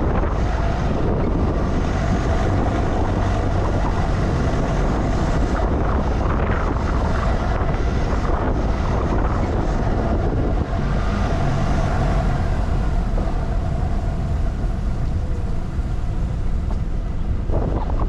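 Strong gusty wind buffeting the microphone: a loud, dense, steady rush of noise, heaviest in the low end.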